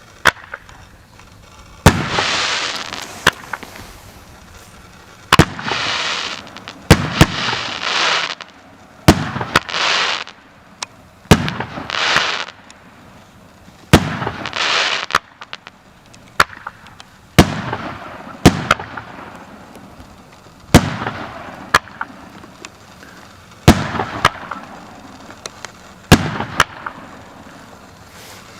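Consumer firework battery (cake) firing shot after shot, a sharp bang every one to two seconds. Many bangs are followed by about a second of hissing.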